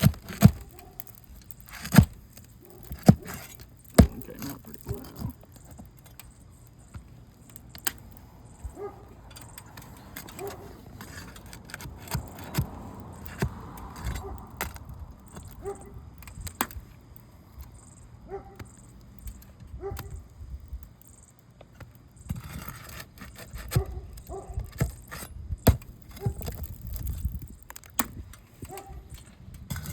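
Steel flat bar prying under asphalt shingles and pulling roofing nails: irregular sharp metallic clinks and taps, busiest in the first few seconds and again near the end.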